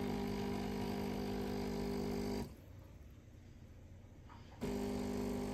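Cecotec coffee machine's pump humming steadily while it brews an espresso. The pump cuts out about two and a half seconds in and starts again about two seconds later.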